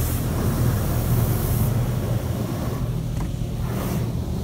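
High-pressure water jets of a LaserWash 360 touchless car wash spraying the car, heard from inside the cabin as a hiss over a steady low rumble. The hiss falls away about halfway through.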